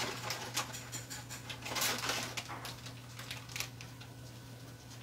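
Rustling and light clicks of a small packet and other items being picked up and handled, loudest about two seconds in, over a steady low hum.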